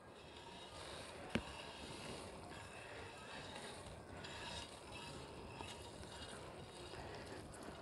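Faint rustle and patter of crisp fried boondi (gram-flour pearls) sliding off a plate into a pot of thickened sugar syrup, with one sharp click about a second and a half in.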